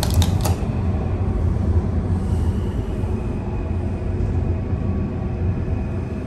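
Steady low rumble and hum of a hydraulic elevator car travelling. A few sharp clicks come at the start, from a round vandal-resistant car button being pressed.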